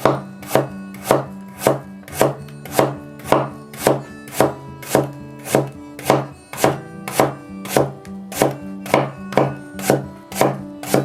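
Kitchen knife slicing a white radish on a cutting board, one even chop about every half second.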